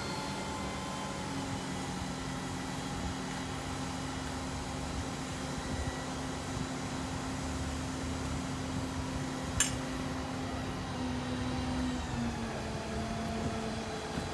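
Large mobile crane's engine running at a steady speed with an even hum, dipping slightly in pitch near the end. One sharp click about ten seconds in.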